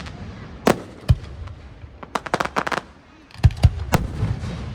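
Aerial fireworks shells bursting: sharp bangs with a rolling echo, a quick cluster of crackling reports a little past two seconds in, and more loud booms near the end.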